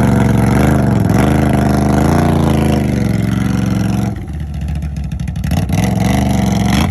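ATV engine revving under throttle, its pitch rising and falling, then dropping off about four seconds in before picking up again near the end.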